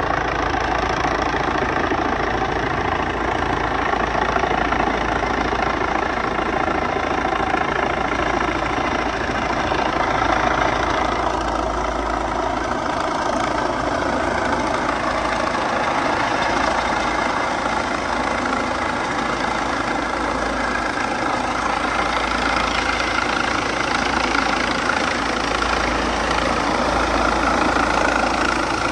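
Airbus H135 helicopter's rotors and twin turbine engines running steadily as it comes in and descends to land, with a constant turbine whine that grows louder and slightly higher in the last few seconds as it nears.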